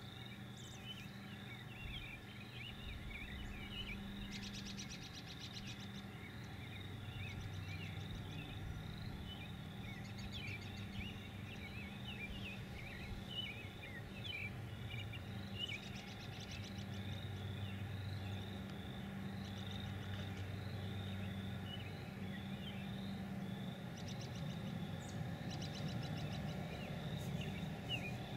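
Outdoor field ambience: many small birds chirping continuously over a steady high trill, with short buzzy trills a few times and a steady low hum underneath.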